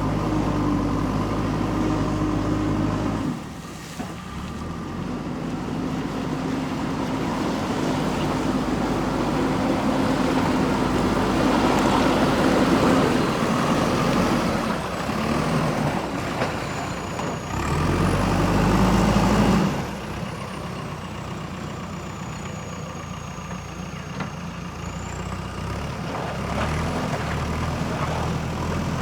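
JCB backhoe loader's diesel engine working under load, its note dropping about three seconds in, building back up, then revving hard for a couple of seconds before easing off again. A faint high whistle rises and falls above it in the second half.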